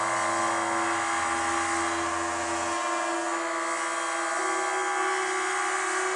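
Eurorack modular synthesizer droning: a noisy, dense texture over a steady held note that steps slightly higher about four seconds in. A low bass tone underneath drops out a little before three seconds in.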